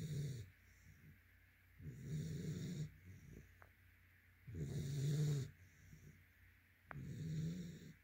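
A yellow Labrador retriever puppy snoring in its sleep: a snore about every two and a half seconds, each lasting about a second.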